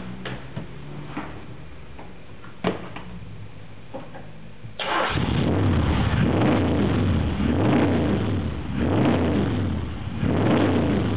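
A few knocks as the driver gets into the AC Cobra. About five seconds in, its V8 fires up through the side exhaust pipes and is blipped several times, rising and falling in level.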